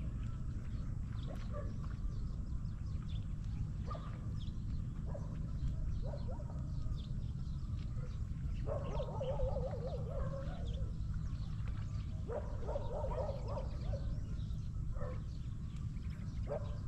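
Farm animal calls: two long wavering calls, each a second or two, a few seconds apart, with a few shorter calls around them, over a steady low rumble.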